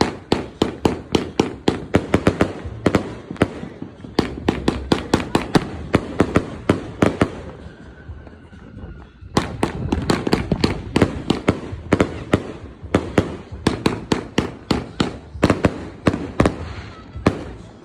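A 98-shot firework cake firing: a rapid run of sharp cracks and bangs, several a second, as its shells go off and burst. There is a short lull about eight seconds in before the barrage starts again.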